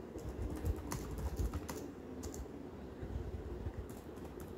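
Computer keyboard clicking: a handful of scattered keystrokes at uneven spacing.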